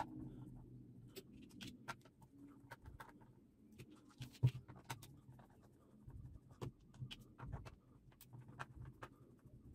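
Screwdriver backing the screws out of a 24 V iMAX cordless-drill battery pack's plastic case, with the pack handled on the bench: faint, scattered small clicks and scrapes, the loudest knock about four and a half seconds in.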